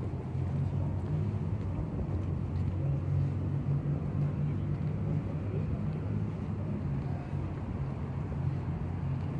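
Steady low rumble of distant city traffic, with no distinct events.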